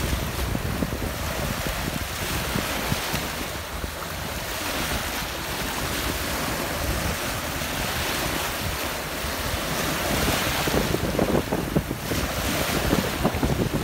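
Sea waves washing ashore, with wind buffeting the microphone; the surf swells louder in the last few seconds.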